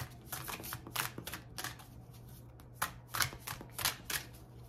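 An oracle card deck being shuffled by hand: a run of irregular, quick papery flicks and taps.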